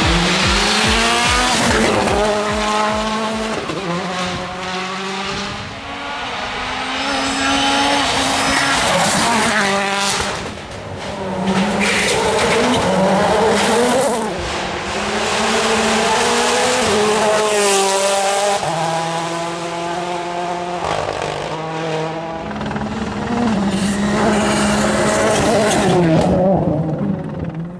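World Rally Cars at speed on a tarmac stage, their engines revving hard and dropping back through repeated gear changes as they pass.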